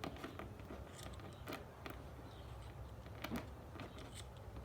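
Faint, scattered clicks and creaks of a bicycle chain breaker tool being cranked, pressing a pin out of a chain link.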